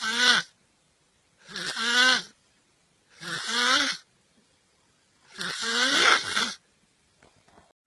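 A person snoring heavily: four loud snores about two seconds apart, each a rasping breath with a wavering pitch.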